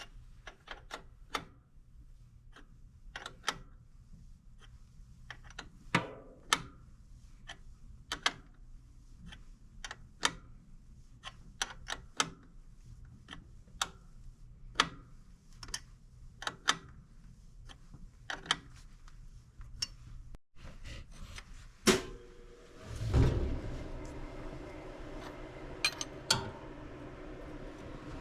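Hand tools working on an engine: irregular sharp metallic clicks and knocks of wrenches on fittings and bolts, about one or two a second, with a louder clatter and a short low rumble near the end.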